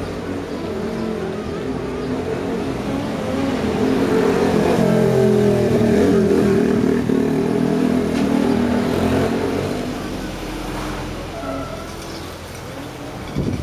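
Car engine running, heard from inside a moving car with road noise. The engine note rises and grows louder about halfway through, then eases off again.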